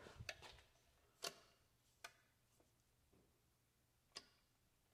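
A few faint, isolated clicks in near silence, as of a switch being tried: four sharp clicks spread irregularly, the loudest about a second in. Nothing comes on, since the power is off in this part of the building.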